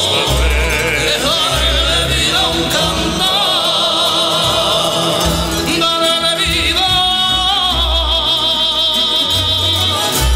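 Background music: a song with a singing voice holding wavering notes over a low bass line.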